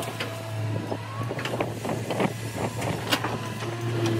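L&T Komatsu crawler excavator's diesel engine running steadily, with scattered sharp knocks and clatter as soil and stones drop from its bucket into a tipper truck's steel bed and the machine swings back to dig. A steady whine comes in near the end.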